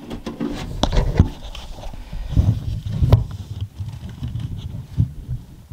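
Hands working inside a PC case: irregular scraping, small clicks and a few dull knocks as tiny front-panel switch connectors are pushed onto the motherboard's front-panel pin header.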